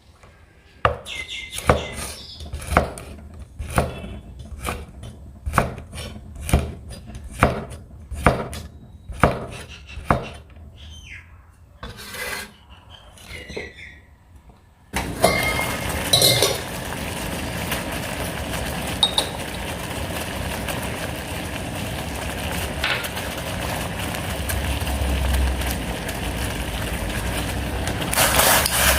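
Knife chopping on a wooden cutting board in slow single strokes, about a dozen over the first half. About halfway through a steady hiss starts abruptly, with a few small clicks in it.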